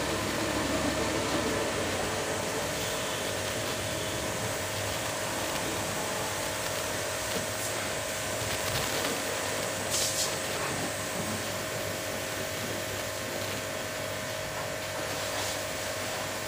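Pressure washer running steadily: a constant motor hum under the hiss of the water jet spraying a motorcycle. A brief sharp sound comes about ten seconds in.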